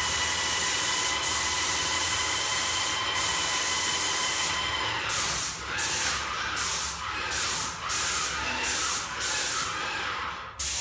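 Airless paint sprayer hissing as it sprays acrylic eggshell onto a wall. A continuous pass with a faint steady whistle under the hiss lasts about five seconds, then the spray comes in short on-off bursts as the trigger is pulled and released, ending with a sudden cut-off near the end.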